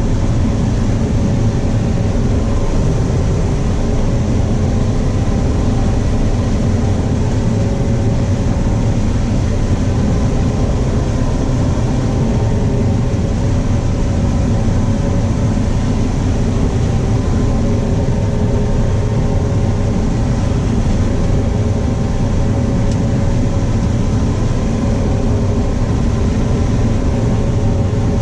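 Combine harvesting corn, heard from inside the cab: a loud, steady drone of the engine and threshing machinery, with a few faint steady tones above it.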